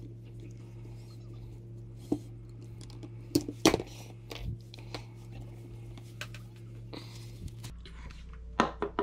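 Tools and a model locomotive being handled and set down on a workbench mat: scattered sharp clicks and knocks, the loudest pair about three and a half seconds in, over a steady low hum.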